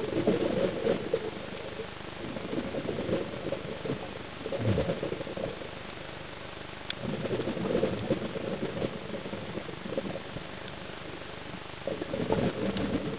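Scuba diver's regulator exhalations recorded underwater: bubbling, gurgling bursts of about a second each, coming every few seconds, over a steady low hiss.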